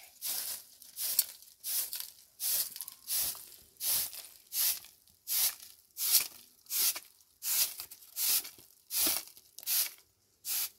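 Rhythmic scraping or rasping strokes, about three every two seconds, keeping an even pace.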